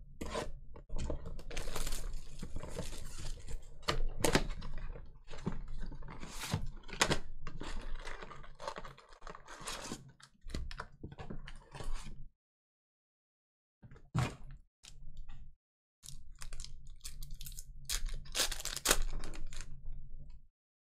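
A cardboard trading-card hobby box being torn open by hand, then card pack wrappers crinkled and peeled open: a dense run of crackling, rustling and tearing, with two brief silent gaps about two thirds of the way through.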